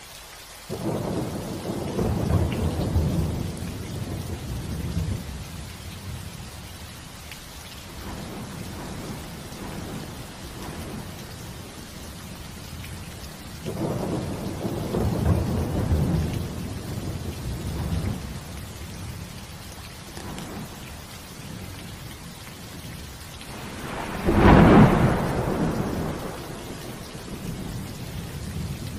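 Steady rain with thunder rolling in three times: a long rumble about a second in, another midway, and a louder, more sudden clap near the end.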